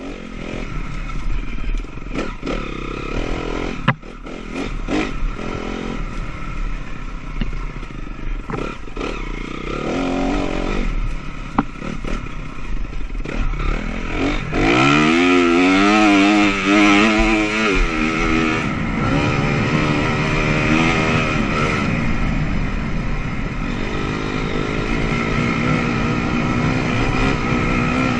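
Honda CRF250R dirt bike's single-cylinder four-stroke engine running under constantly changing throttle, with scattered sharp knocks and clatter. About halfway through it revs up hard and holds high, wavering revs for a few seconds before settling to a steadier drone.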